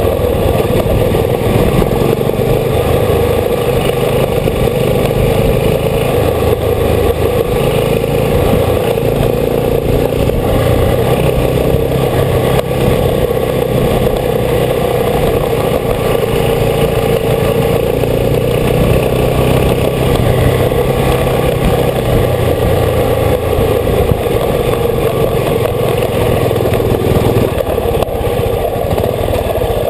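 Old motorcycle's engine running while riding, heard close up from the bike itself. The engine note shifts up and down a little as the speed changes.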